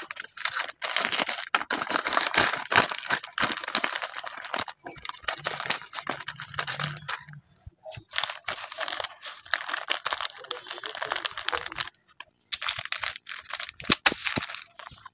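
Paper bag crinkling and rustling as it is handled, folded shut and pressed flat, in several stretches with short breaks between them. Near the end there are a few sharp taps as the sealing sticker is pressed down.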